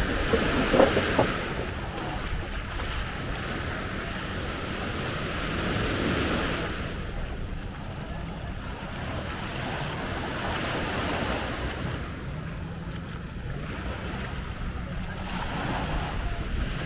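Sea waves washing in on the shore, swelling and falling back every few seconds, with a low wind rumble on the microphone. A few short knocks sound in the first second.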